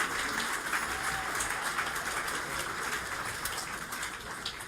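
Audience applauding, slowly fading away.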